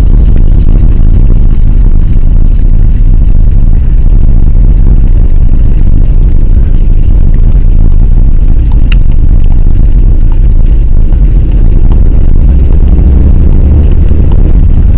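Steady, loud low rumble of a car's engine and tyres on a snowy road, heard from inside the moving car's cabin.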